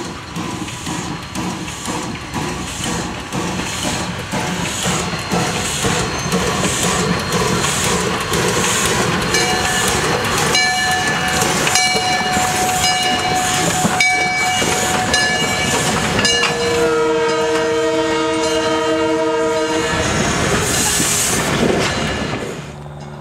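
Lehigh Valley Coal Co. #126 steam locomotive chuffing as it draws near and passes close by, getting louder. Its bell rings from about ten seconds in, then a steady whistle blast lasts about three and a half seconds near the end.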